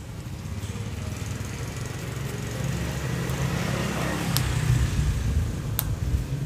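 A low engine rumble that grows a little stronger partway through, with two sharp clicks, about four and a half and six seconds in.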